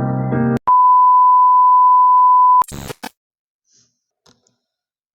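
Piano music stops short about half a second in, then a single steady electronic beep sounds for about two seconds and cuts off, followed by a few short clicks.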